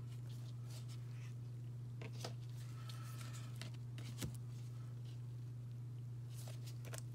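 A steady low hum, with faint rustles and light clicks now and then as baseball cards are handled and shuffled by hand.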